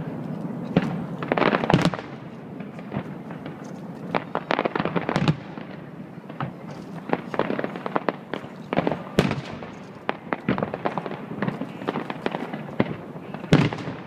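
Aerial fireworks bursting in a continuous run of bangs and crackles. A few louder booms stand out, near the start, about halfway, and near the end.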